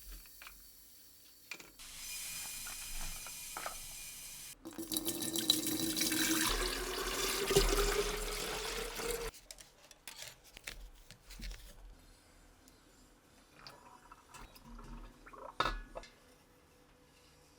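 Water running from a tap into a container, starting as a soft hiss and then a fuller rush whose pitch rises as the container fills, shut off abruptly about nine seconds in. Light clinks and knocks of small metal parts follow.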